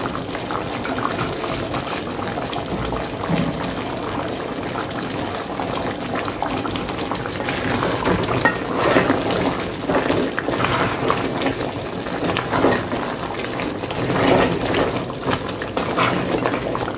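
Curry cow foot simmering and bubbling in a large aluminium pot, with a wooden spoon stirring through the thick gravy and meat; the stirring gets louder in stretches past the middle.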